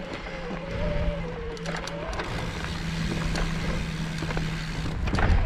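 Electric mountain bike motor whining under load on a climb: a whine that wavers up and down in pitch, fading a couple of seconds in, over a steady low hum, with scattered clicks of the tyres on rock. A loud thump comes near the end.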